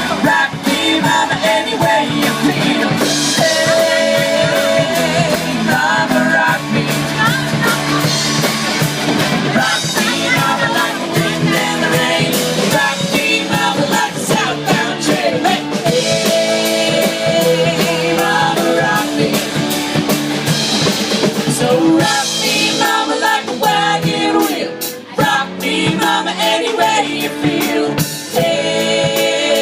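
Band music: a country-rock song with drum kit and guitar playing continuously.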